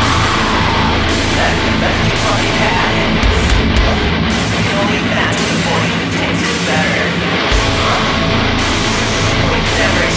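Loud metalcore music: heavily distorted electric guitars, bass and drums playing together, with cymbals cutting in and out every second or two.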